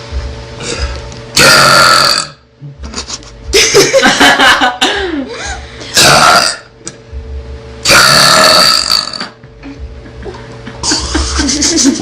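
A girl burping loudly, several long rasping burps in a row, each lasting up to about a second.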